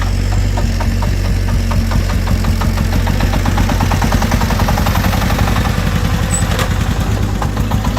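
Diesel engine of a công nông three-wheeled farm truck running steadily, with a loud, rapid, even knocking beat.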